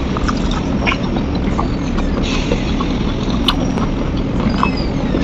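Close-up sounds of eating spicy chicken feet: wet mouth smacks, sucking and small clicks of chewing as the skin is bitten and pulled off the bones, over a steady low rumbling hum.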